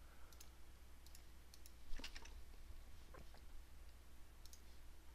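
Faint, irregular clicks of a computer mouse, about ten scattered through, over a low steady electrical hum.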